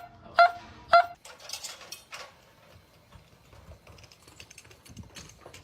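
A small dog yipping twice, short high-pitched barks about half a second apart, then only faint scattered light clicks and patter.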